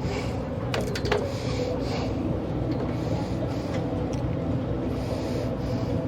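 Boat engine running steadily with a low hum, with a couple of sharp knocks about a second in.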